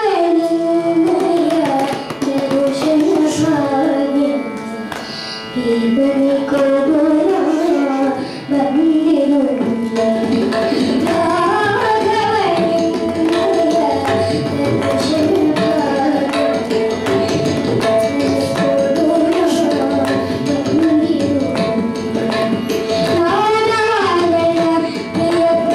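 A young boy sings a devotional song with gliding ornaments, accompanied by tabla strokes over a steady drone from an electronic shruti box.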